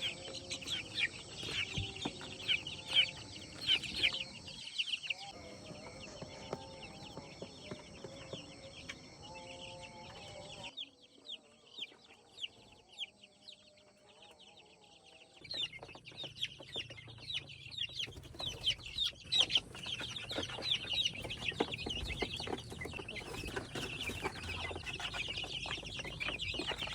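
A flock of young native chickens peeping rapidly and continuously, with some lower clucking mixed in. The calls fade to faint about eleven seconds in and pick up again a few seconds later.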